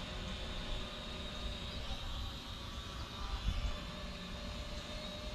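Syma X500 quadcopter drone hovering, its propellers giving a steady whine, with a low rumble underneath.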